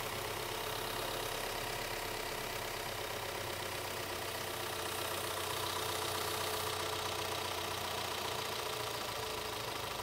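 2014 Audi 2.0-litre turbocharged four-cylinder engine idling steadily, hot, with a fault that draws excess vacuum on the crankcase.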